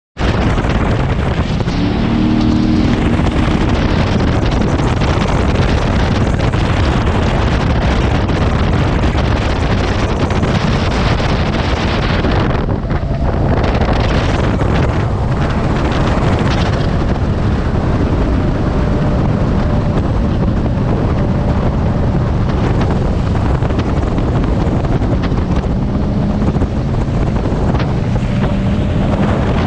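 Jet boat under way: a steady engine and rushing water mixed with wind noise on the microphone, the hiss easing briefly about thirteen seconds in.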